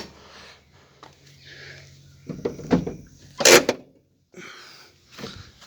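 Clunks and clatter of a Volkswagen Beetle's door and cabin as its handbrake is pulled, with one loud sharp clunk about three and a half seconds in.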